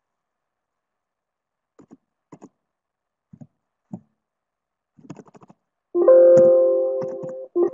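A few faint clicks and taps, then a loud, sustained keyboard-like electronic chime chord that starts about six seconds in, fades, and sounds again near the end.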